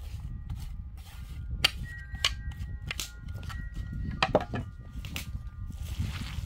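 A painted wooden dish knocking against the rim of a bamboo mixing bowl as diced onion is emptied into it: about six sharp wooden knocks, some followed by a clear ringing tone that hangs on for a second or so. A steady low wind rumble sits underneath.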